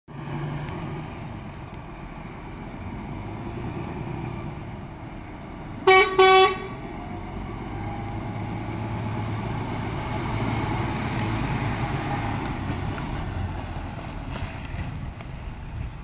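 DAF CF 330 rigid truck's diesel engine running as it drives up and past, growing louder as it comes close, with two short, loud blasts of a truck horn about six seconds in.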